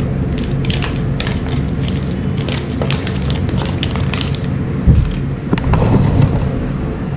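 Paper butter wrapper crinkling and tearing as it is peeled off a block of butter, with a thud about five seconds in as the block goes into a glass bowl. A steady low hum runs underneath.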